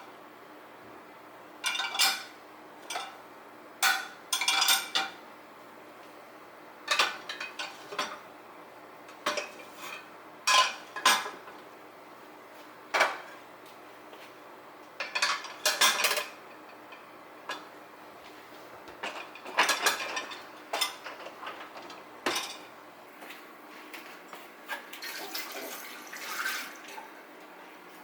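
Cutlery and dishes clinking: irregular short knocks and clinks every second or so, some coming in quick clusters of several strikes, a few ringing briefly.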